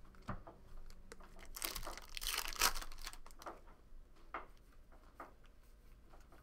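A foil trading-card pack being torn open, its wrapper crackling for about a second and a half. Then come a few short swishes as the cards inside are slid apart and flipped through.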